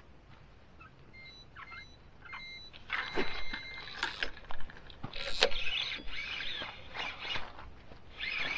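Electronic bite alarm on a fishing rod giving short high beeps, the sign of a fish taking the bait and pulling line. Irregular knocks and rustling build from about three seconds in as the rod is approached.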